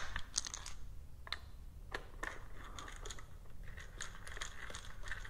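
Faint, scattered small clicks and rustles of hands handling a clutch-cover screw and starting it by hand, only lightly.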